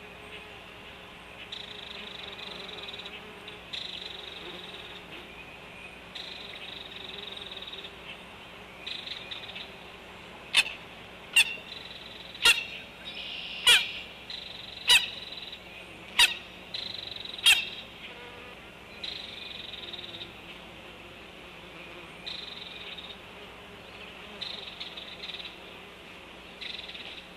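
A young chicken chick sneezing: a run of seven sharp, short sneezes about a second apart in the middle, over a faint, steady high chirping.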